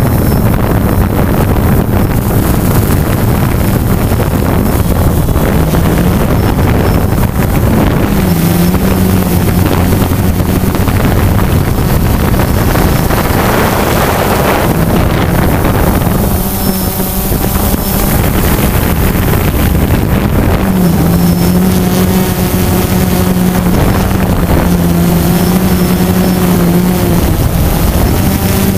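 DJI Phantom quadcopter's motors and propellers buzzing steadily in flight, recorded on board by the GoPro carried on the drone, the pitch shifting up and down a little now and then, with wind rushing over the microphone.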